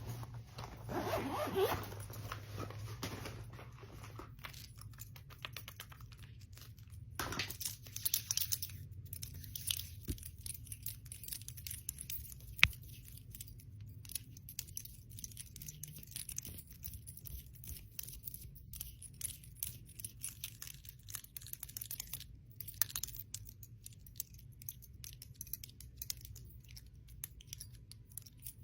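Bangles and rings clinking and clicking close to the microphone: a dense, irregular run of small metallic clicks, with one sharper, louder click about twelve seconds in.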